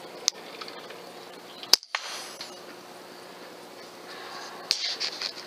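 A single shot from an FX Streamline pre-charged air rifle: one sharp crack a little under two seconds in. A fainter click comes early, and a few quieter clicks follow near the end.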